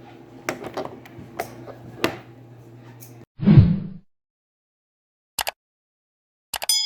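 A few sharp clicks and knocks over a steady low hum, then a short low thump, a stretch of dead silence, and near the end a bright ringing ding sound effect.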